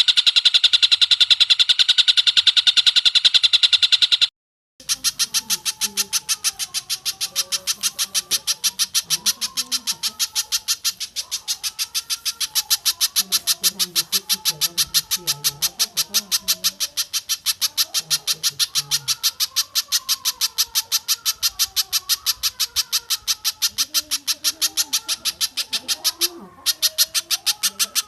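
Recorded bird calls: a fast, even run of sharp repeated notes, several a second, broken by a brief gap about four seconds in and another near the end.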